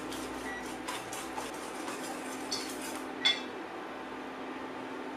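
A whisk ticking lightly against a stainless steel mixing bowl as warm lemon syrup is stirred into eggs beaten with sugar for lemon curd, with one louder ringing metal clink a little past three seconds in.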